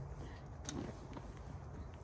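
Faint footsteps with a few light clicks.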